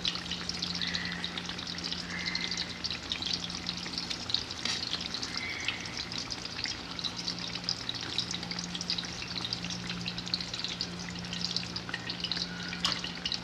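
Eggplant slices sizzling and crackling as they fry in hot oil, with a few sharp clicks scattered through.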